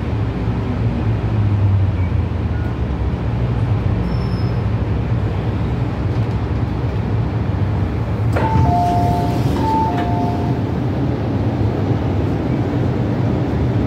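MTR Tsuen Wan Line M-Train car heard from inside while running through the tunnel: a steady, loud running rumble. About eight seconds in, a short two-tone signal sounds twice.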